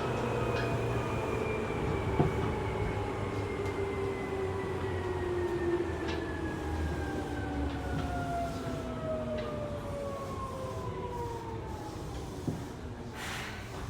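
Seibu 2000-series electric train heard from inside a motor car as it brakes: the traction motor and gear whine slides steadily down in pitch over running rumble as the train slows toward a stop. A short hiss comes near the end.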